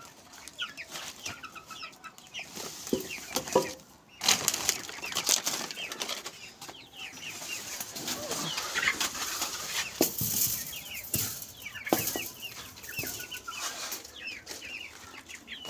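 Chickens clucking and chirping in short calls throughout, over bursts of rustling and a few sharp knocks as blankets and a metal cage are handled.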